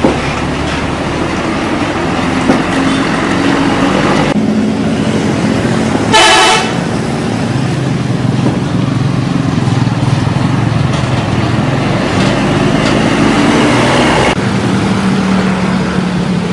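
Road traffic with large vehicles' engines running past, and one loud, short bus horn blast of about half a second, roughly six seconds in. The sound changes abruptly twice, about four and fourteen seconds in.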